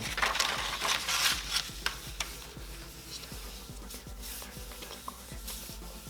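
Hands handling cords and packaging: rustling and scraping with small clicks, busiest in the first two seconds and then quieter.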